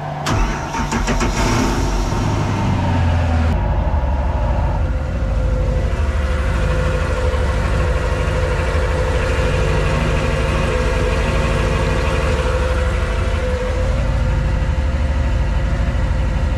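Crusader marine inboard engine started cold. It catches within the first few seconds and settles into a steady idle as it warms toward operating temperature.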